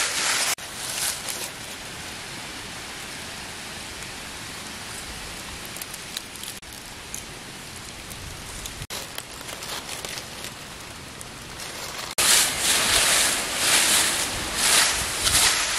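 Dry bamboo leaves rustling and crackling as they are raked aside by hand, loudest briefly at the start and again through the last few seconds. In between there is a steady, even hiss.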